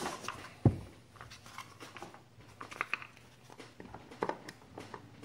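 A sharp knock under a second in, then scattered light clicks and rustles, with a few more knocks about four seconds in; no engine is running.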